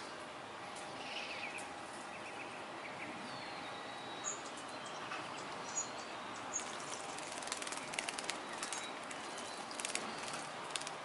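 A sparrow bathing in a shallow birdbath, fluttering its wings and splashing water in quick bursts through the second half. A few short bird chirps come before it.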